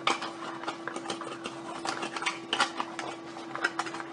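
Cardboard box and plastic packaging being handled by hand: irregular rustling with many small clicks and taps, over a steady low hum.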